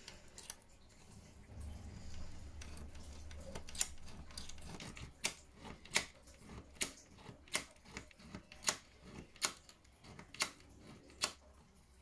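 Small hand-pumped Archimedes drill with a 1.5 mm bit, scoring pilot marks into the truck's chassis rail through the fender bracket holes. From about five seconds in it gives a sharp click roughly every 0.8 seconds, one per stroke.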